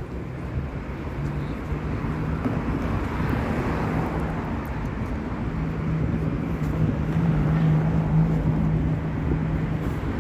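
Street traffic: a vehicle engine's steady low hum that grows louder in the second half, with rushing tyre noise swelling and fading a few seconds in.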